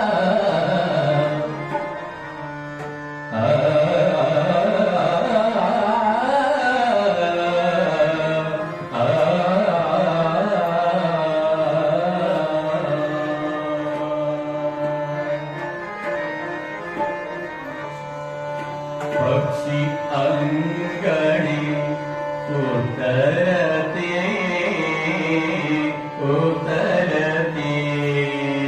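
Marathi devotional bhajan: a male lead singer with instrumental accompaniment, including a drum.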